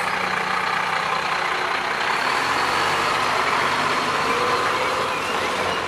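Rear-loader garbage truck's diesel engine running steadily as the truck drives slowly forward.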